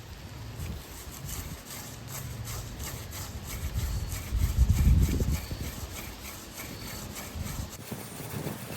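A yucca hand-drill spindle twirled between the palms on a crepe myrtle fireboard, wood grinding on wood in quick repeated strokes as friction builds toward an ember. The strokes stop near the end.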